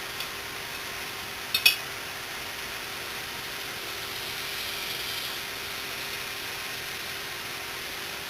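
Two quick, light clicks of small metal parts being handled, about one and a half seconds in, over a steady background hiss.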